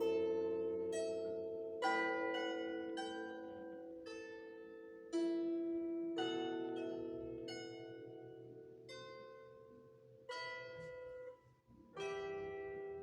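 Solo instrumental music played slowly: single notes and chords start sharply and ring on, fading away, with a last chord about a second before the end left to die out.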